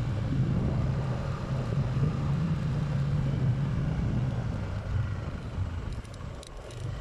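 Motorcycle engine running as it rides along at steady speed, a low steady hum that eases off near the end.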